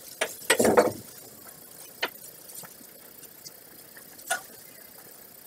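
Person shuffling behind a plastic recycling bin with a plastic bag: a short rustle and scrape about half a second in, then a few scattered sharp clicks.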